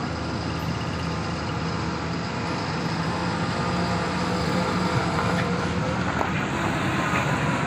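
UD Quester heavy truck's diesel engine running under load as the truck climbs slowly uphill: a steady low drone that grows a little louder as it comes past.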